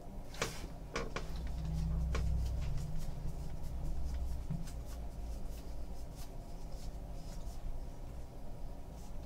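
A stack of 2015 Bowman Draft baseball cards handled and slid one by one between the hands, giving light clicks and card-edge rustles. A low rumble runs from about one and a half to four and a half seconds in.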